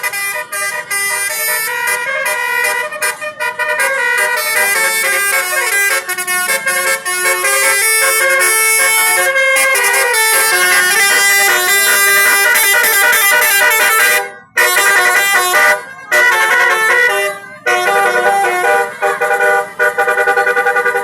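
Bus 'telolet' basuri horn playing a tune: a fast run of musical horn notes stepping up and down in pitch, going on almost without pause and cutting out briefly three times in the second half.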